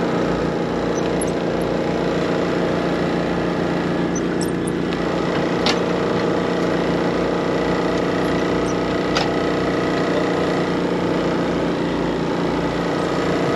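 A small engine running steadily, its even hum unchanged throughout, with a couple of sharp clicks about six and nine seconds in.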